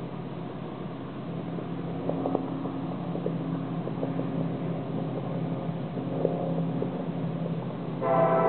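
Diesel-electric freight locomotives approaching, a steady low engine drone growing slowly louder with a few light clicks. Near the end the lead locomotive's air horn starts suddenly, blowing for a grade crossing.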